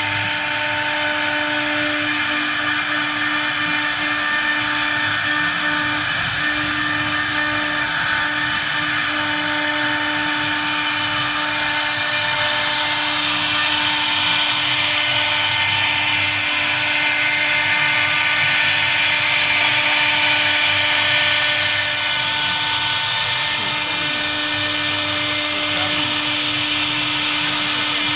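CNC router spindle running at a steady high speed, a constant whine over a steady rushing noise.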